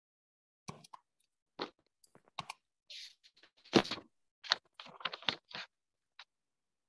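Computer keyboard being typed on and backspaced: irregular clicks and clattering keystrokes, some in quick clusters, with a louder burst about four seconds in.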